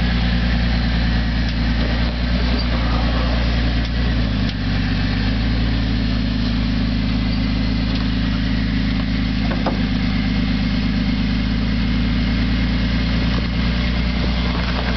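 Jeep engine running at low, steady revs under load as it crawls up a steep rock ledge; the pitch shifts slightly about four seconds in.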